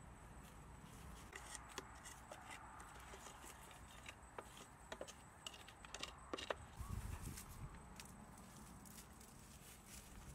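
Faint scattered clicks and light knocks of dry twigs and straw being handled around a clay charcoal stove, with a brief low rumble about seven seconds in.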